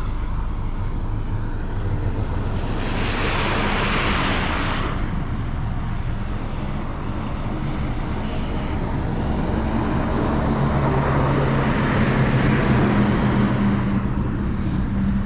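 Vehicle engines running steadily, with the hiss of a passing vehicle swelling and fading about three to five seconds in, and an engine growing louder again from about ten seconds in.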